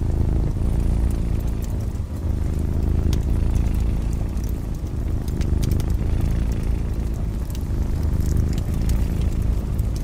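A cat purring steadily in a deep, continuous rumble, with a wood fire crackling alongside in scattered small pops.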